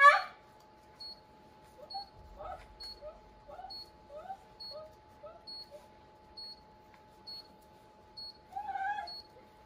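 Dog whimpering: a loud cry at the start, then a run of short whines about two a second, and a louder, longer whine near the end. A faint steady electronic tone and soft, regular high beeps run underneath.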